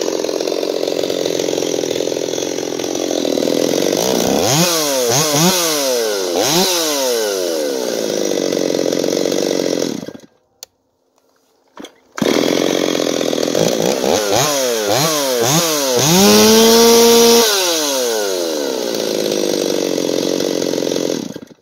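Stihl MS250 two-stroke chainsaw with its muffler baffle removed, running hard through wood, with quick throttle blips in between and a brief wide-open rev about two-thirds of the way through. The sound cuts out abruptly about halfway through and again at the end.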